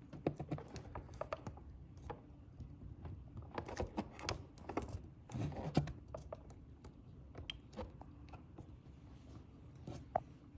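Scattered light clicks and taps of small parts being handled as a U-pin is slotted through two holes to hold a pressure washer's pressure switch box in place. The clicks are busiest in the first half and thin out after about six seconds.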